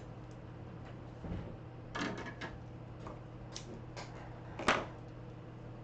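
A few light knocks and clicks of small objects being handled and set down on a workbench, the sharpest near the end, over a steady low hum.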